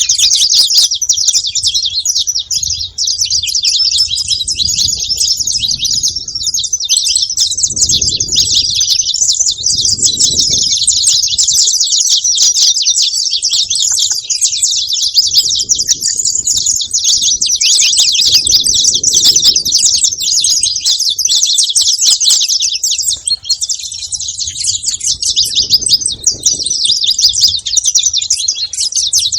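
Saffron finch (canário-da-terra) singing a continuous run of rapid, high chirps and trills.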